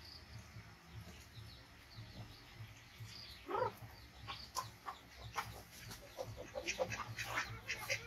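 Faint at first, then about three and a half seconds in a short animal call, followed by a quickening run of short clucking or chirping calls and clicks that grows louder toward the end.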